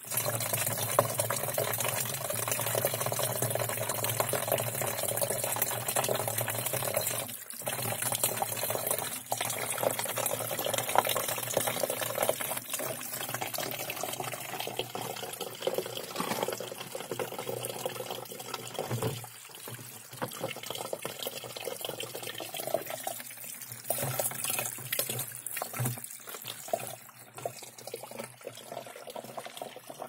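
Spring water running from a spout into a plastic bottle held under it, a steady splashing pour. It grows quieter in the second half.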